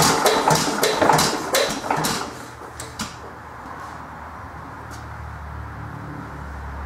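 1914 Economy Model D single-cylinder hit-and-miss engine running with a quick, regular knocking of about three beats a second, which dies away about two seconds in as the engine stops. A couple of lone clicks follow, and a low steady hum comes in near the end.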